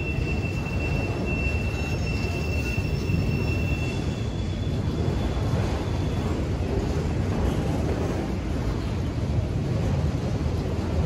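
Freight train of autorack cars rolling past, a steady rumble of wheels on the rails. A faint high-pitched wheel squeal runs through the first few seconds.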